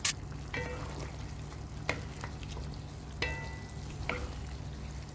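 A spoon stirring chicken in a thick yogurt gravy in a pan. It gives a sharp clack at the start, then knocks against the pan four or five times with short ringing clinks, over a steady low hum.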